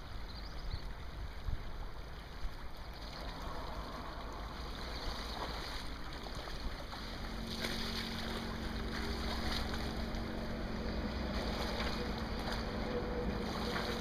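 Men in waders sloshing through a shallow river, water splashing around their legs, over a steady rumble of wind on the microphone. A steady low hum comes in about halfway.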